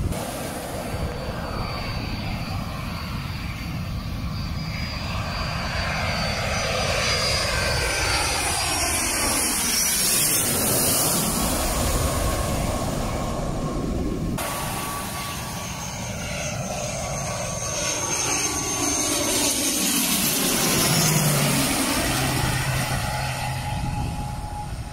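Twin-engine jet airliner passing low overhead on final approach, its engine noise building and then dropping in pitch as it goes over. After an abrupt cut, a second, twin-turboprop airliner passes over the same way.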